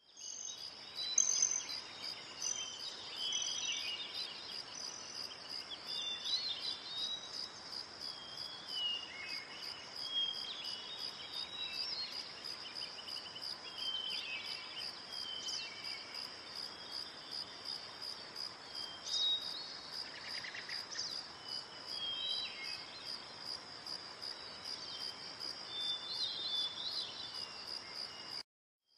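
Steady, high-pitched insect trilling, like a cricket or cicada chorus, with birds chirping and whistling now and then. It cuts out briefly near the end and starts again.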